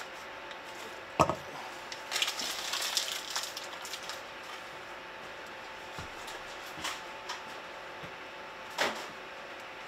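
A block of butter dropped into a hot stainless-steel skillet with a single knock and brief ring of the pan about a second in, then a soft, faint sizzle as it starts to melt, over a faint steady hum. A few small knocks follow, the clearest near the end.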